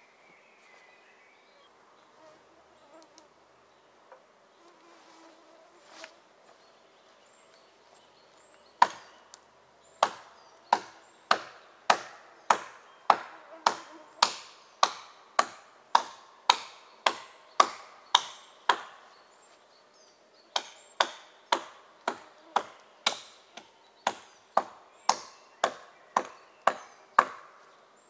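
Axe chopping wood in steady, sharp strokes about two a second. The strokes begin about a third of the way in, pause briefly past the middle, then carry on.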